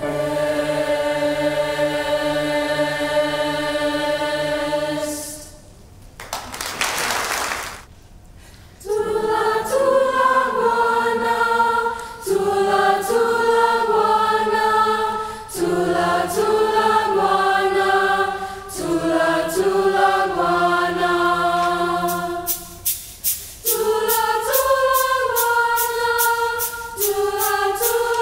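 High school mixed choir singing in harmony. A sustained chord gives way to a brief rushing noise, then moving chords, and about 22 seconds in a percussion part enters as steady ticks, about four a second.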